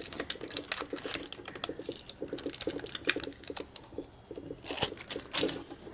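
A small table creaking in quick, irregular clicks and squeaks as old tape is picked and pulled off a clear plastic UPS battery module case. It makes quite the racket.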